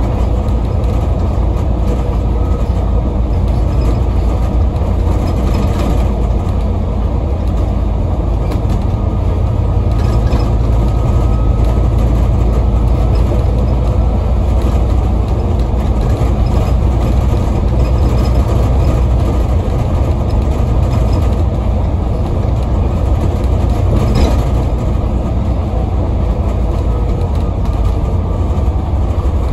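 Inside an Alexander Dennis Enviro400 MMC double-decker bus on a Scania N250UD chassis under way: the steady low drone of its Scania 9-litre five-cylinder diesel with road noise, and a brief knock near the end.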